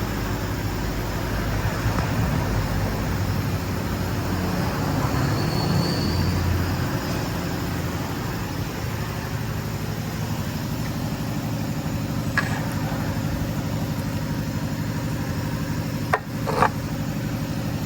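Car engine running steadily, with one sharp knock about twelve seconds in and two more in quick succession near the end.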